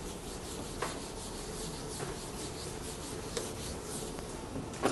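Chalkboard eraser rubbing across a chalkboard in repeated wiping strokes, clearing old chalk writing.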